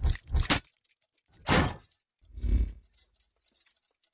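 Logo-animation sound effects of gears locking together: a quick run of mechanical clunks in the first half-second, then two heavier hits about a second apart, the second with a deep boom.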